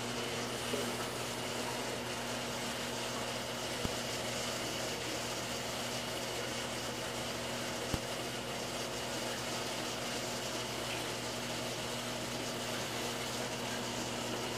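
Steady hum and water-moving noise of a saltwater reef aquarium's pumps and circulation, with two small clicks about four and eight seconds in.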